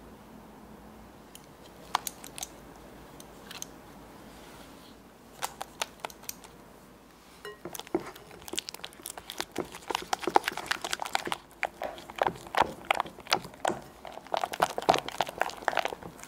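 Silicone spatula mashing and stirring cream cheese with cream and condensed milk in a glass bowl. A few soft clicks come first; then, from about halfway, quick repeated strokes and taps of the spatula against the glass.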